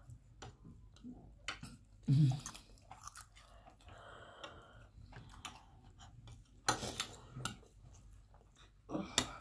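Close mouth noises of people chewing and biting rice and chicken, with scattered sharp clicks of metal forks and spoons on plates. A brief louder low sound comes about two seconds in, and a cluster of clicks about seven seconds in.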